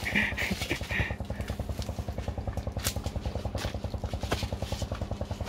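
A small engine running steadily with a rapid, even putter. A few sharp clicks sound over it.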